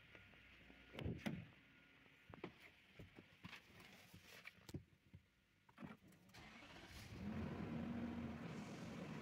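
A loud knock about a second in and several lighter clicks and knocks, then a Nissan Patrol's engine cranks and starts about seven seconds in and runs steadily. The engine has a P0021 intake valve timing fault logged on bank 2.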